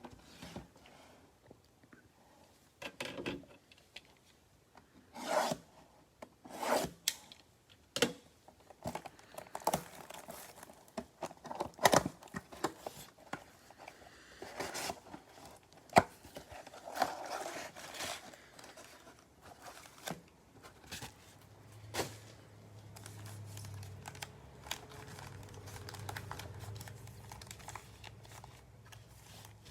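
Trading cards and their packaging being handled on a table: scattered rubbing, scraping and tearing of card, plastic and pack wrappers, with a few sharp taps. A faint low hum joins in about two-thirds of the way through.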